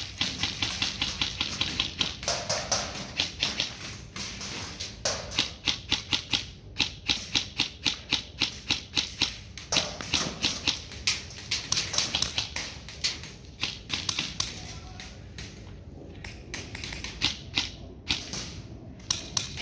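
Airsoft guns firing: sharp clicking shots, some single and some in quick runs, going on throughout.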